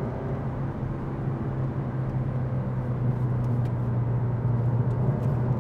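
Mazda 3's petrol engine pulling steadily in third gear through a fast bend, heard from inside the cabin as a steady low hum with road noise, growing slightly louder toward the end.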